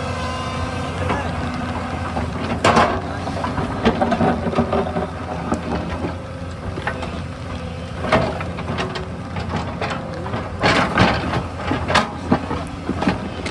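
Excavator diesel engines running steadily, with irregular clanks and knocks from the digging. The loudest cluster of knocks comes near the end.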